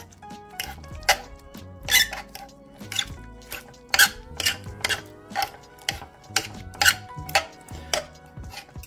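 Metal forks scraping and clinking against a baking dish while flaking baked pollock, in sharp, irregular strikes a few times a second. It is a horrid sound.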